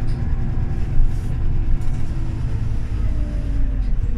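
Scania OmniLink articulated city bus running: a steady low engine rumble, with whining drivetrain tones that slide down in pitch near the end.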